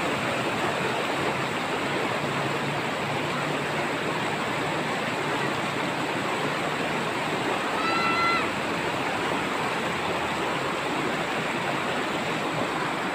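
Shallow rocky river rushing steadily over stones and small rapids. About two thirds of the way through, a short high-pitched call cuts in briefly.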